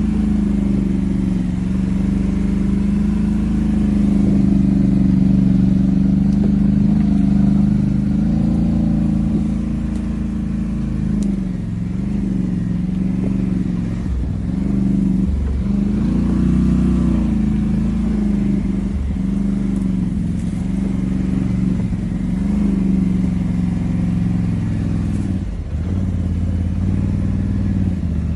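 Quad bike engine running while riding, a steady engine note whose pitch dips and rises again several times in the second half.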